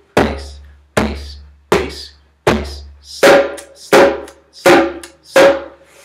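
Hand-played djembe: eight strokes at an even pace, about one every three quarters of a second. The first four are booming bass tones struck flat near the centre of the head; the last four are sharper, brighter slaps near the rim, ending the bass-and-slap alternation drill.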